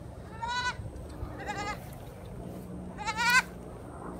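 A young goat kid bleating three times: short, high-pitched, quavering calls.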